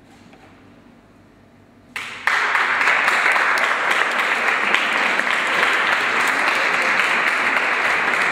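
A small audience breaking into applause about two seconds in, after a quiet pause, then clapping steadily.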